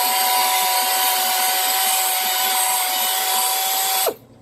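Electric power tool, of the drill or polisher kind used to sand and buff a headlight lens, running at a steady high whine. About four seconds in it is switched off, and its pitch drops as it winds down.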